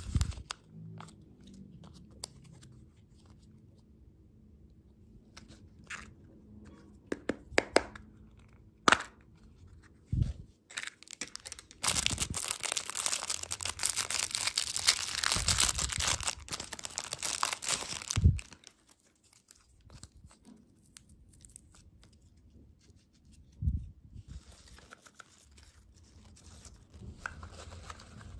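Candy packaging being torn open and crinkled by hand, with scattered sharp clicks and taps. A dense stretch of tearing and crinkling lasts about six seconds in the middle.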